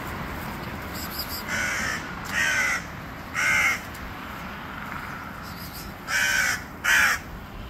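Crow cawing five times, three caws starting about a second and a half in and two more near the end, each call standing well above the background. These are alarm caws directed at a cat on the ground below.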